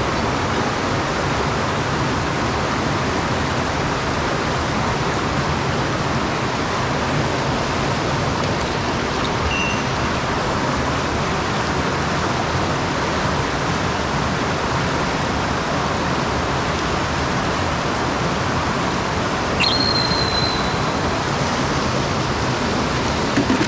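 Mountain stream water rushing steadily over rocks, with a short high-pitched chirp about twenty seconds in.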